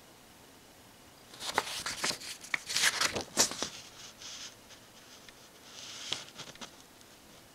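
Paper pages of an instruction booklet being turned and handled: a run of crisp rustles and crackles for about two seconds, then a softer rustle near the end.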